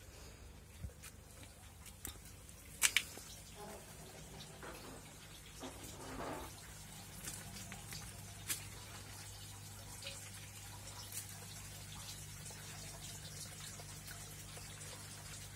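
Water trickling and dripping in an aquaponic system over a steady low electric hum from its circulation pump. There is a sharp double click about three seconds in, and a few lighter knocks.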